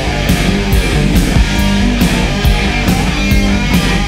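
Rock music with guitar and a steady drum beat of about two beats a second.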